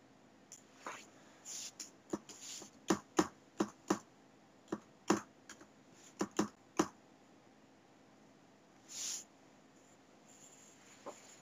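Irregular clicking and tapping on a computer keyboard and mouse: a dozen or so sharp clicks, some in quick runs, over the first seven seconds. A short hiss follows about nine seconds in.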